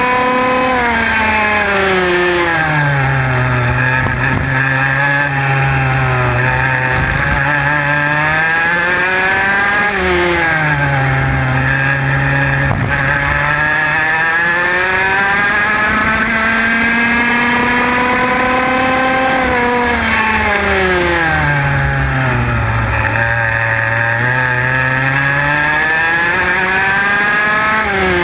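IAME X30 125cc two-stroke kart engine at race pace, heard from onboard. Its pitch drops three times as the kart slows for corners and climbs back each time out onto the straights.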